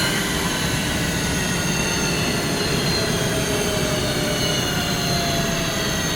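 Boyar Schultz No. 2 profile grinder running under power: a steady mechanical whir with several thin whining tones that sink slowly in pitch.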